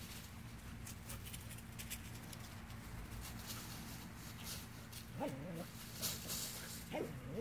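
Dogs playing and running through dry fallen leaves, a faint crackle of leaves and paws. A dog gives two short calls, about five and seven seconds in.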